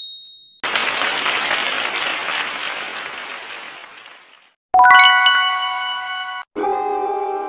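Quiz sound effects for a correct answer. A burst of recorded applause fades out over about four seconds. A bright bell chime follows near five seconds in and rings down, and music starts near the end.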